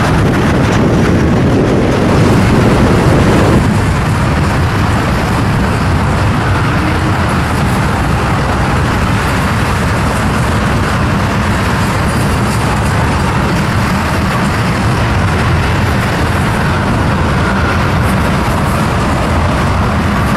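Wind buffeting the microphone, a loud steady rush heaviest in the low end, over the noise of a freight train. The sound changes abruptly about three and a half seconds in.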